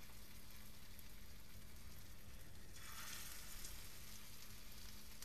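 Hot oil sizzling in a frying pan around red lentil and vegetable patties. About three seconds in the sizzle grows louder for a second or so as a second patty goes into the oil.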